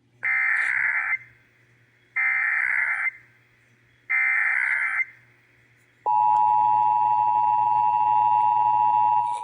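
Emergency Alert System SAME header for a Required Monthly Test: three one-second bursts of digital data screech, about a second apart. About six seconds in, the steady EAS attention signal starts, two tones of 853 and 960 Hz sounded together.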